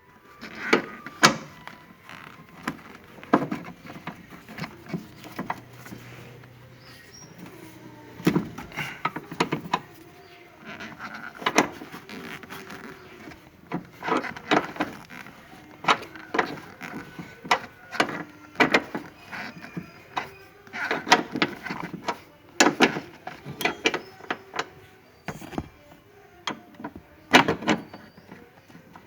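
Irregular clicks and knocks of hand tools working on the bolts of a car's seat belt retractor assembly, some coming in quick runs, with metal and plastic parts being handled.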